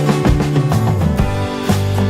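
Background music: a pop track with guitar and a steady beat.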